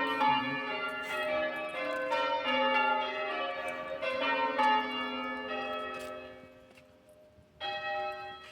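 Church bells rung in quick succession at different pitches, each stroke ringing on into the next, during bell-ringing practice. The ringing thins out and dies away about six seconds in, then a single bell sounds once more near the end.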